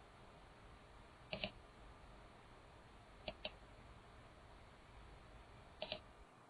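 Computer mouse button clicking, faint: three quick pairs of clicks spaced about two seconds apart, over a low steady hiss.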